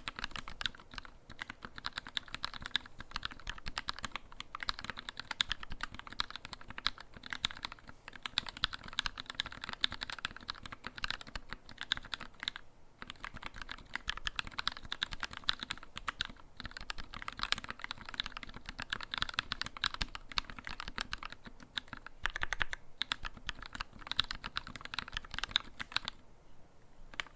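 Steady fast typing on a Tx75 v2 mechanical keyboard with a brass plate, lubed and filmed Gateron Black Ink linear switches and GMK keycaps, a dense run of keystrokes with a couple of brief pauses. The typing stops near the end.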